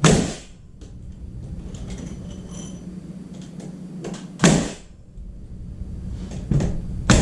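A few sharp knocks and thuds of lumber being handled and set against the ceiling: one at the start, one about halfway, and two close together near the end, over a steady low hum.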